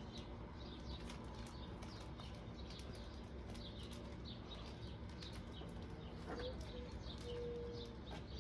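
Birds chirping faintly, a steady run of many short high calls.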